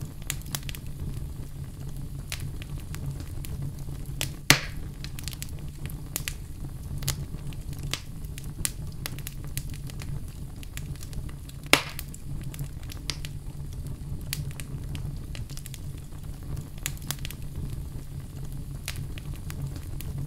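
Wood fire burning in a stove's firebox: steady crackling over a low rumble, with two loud pops about four and a half and twelve seconds in.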